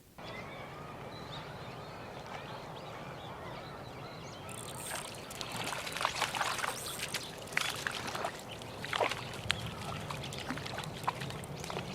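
Water trickling and splashing, with a cluster of sharp splashes about halfway through.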